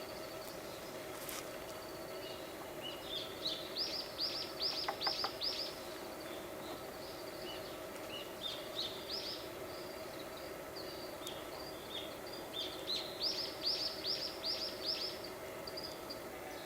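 A songbird singing twice, each time a phrase of quick, repeated downslurred notes, about nine seconds apart, over a steady background noise.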